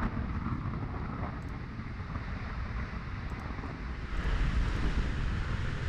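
Atlas V rocket's RD-180 engine heard from the ground during ascent: a steady, deep rumble of exhaust noise that grows louder about four seconds in.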